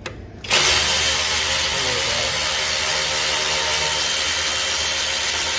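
Power ratchet running steadily with a loud hiss, spinning out the 12 mm bolt that holds the front strut at the brake-line bracket. It starts suddenly about half a second in.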